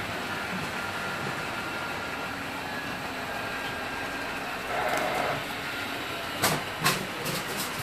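Model train running on a layout's track, a steady rumbling hum over room noise, with a brief louder swell about five seconds in and several sharp clicks near the end.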